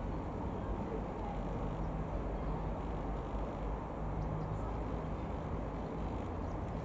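Cessna 172M Skyhawk's four-cylinder piston engine running steadily, a constant low drone.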